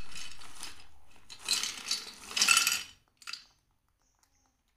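Fish-shaped crackers poured from a plastic bag into a stainless steel divided plate, clattering and clinking on the metal in a few uneven bursts. The pouring stops about three and a half seconds in.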